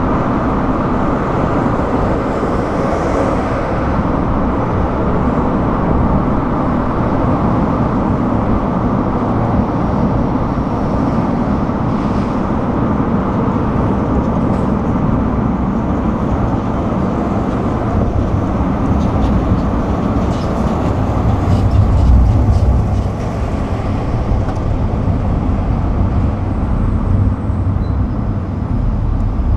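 Car driving on a highway: steady tyre and road noise with wind rush. A low rumble swells briefly a little past two-thirds of the way in, then the noise eases slightly as the car slows into a rest-area road.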